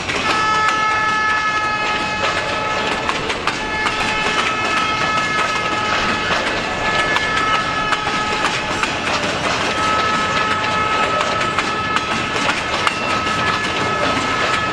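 Freight cars rolling past at close range, wheels clattering steadily over the rail joints, with a steady high-pitched wheel squeal that fades out around the middle and comes back.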